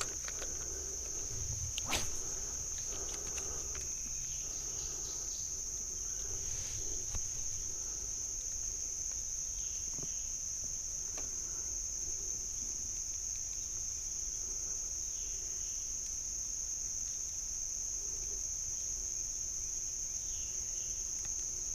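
A steady, high-pitched insect drone holding one pitch throughout, with a few faint clicks now and then.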